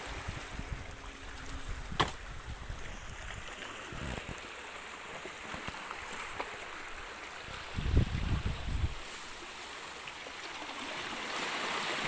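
Sea water lapping and sloshing among granite boulders at the shoreline, a steady watery hiss that grows near the end. A sharp click comes about two seconds in, and a brief low rumble on the microphone about eight seconds in.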